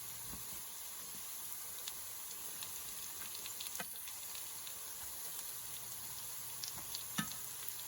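Mashed potato fries deep-frying in hot oil, near the end of frying: a steady sizzle with many small scattered pops and crackles.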